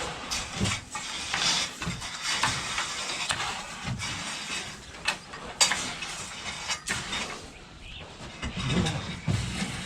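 Loose fill being scraped and pushed along the ground to level it, in irregular gritty strokes about a second apart.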